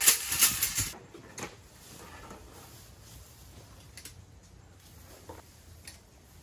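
Metal wire-grid panels of a folding camp table clattering against each other as they are handled, loudest in the first second, followed by a few faint clicks as a panel is unfolded.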